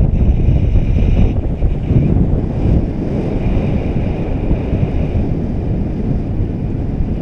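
Airflow buffeting a harness-mounted action camera's microphone during paraglider flight: a loud, steady rush of wind noise. A faint high tone fades in and out several times over it.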